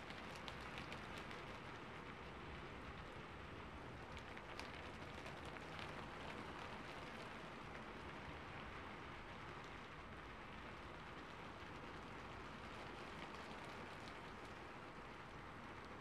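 Steady rain: an even hiss with a few faint ticks in the first few seconds.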